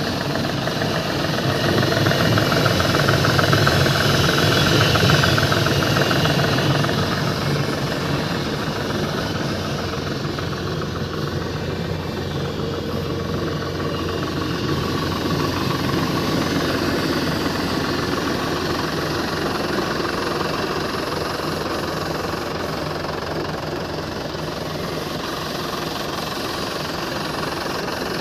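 Tractor's diesel engine running steadily while working a pesticide sprayer, a little louder for a few seconds near the start.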